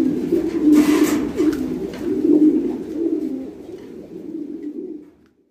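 Domestic fancy pigeons cooing continuously, a low rolling coo that swells and dips, the display coo of a male circling in the cage. A brief rustle about a second in, and the cooing fades out near the end.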